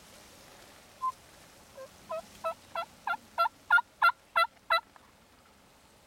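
Wild turkey yelping: a single short note, then a run of about ten yelps, about three a second, growing louder before stopping.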